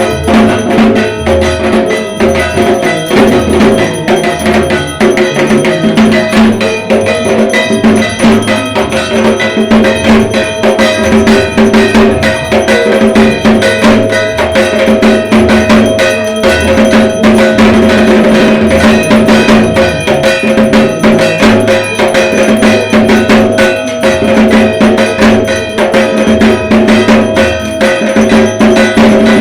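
Dhak drums played nonstop in a fast, dense rhythm, with a steady ringing tone held over the rapid drum strokes.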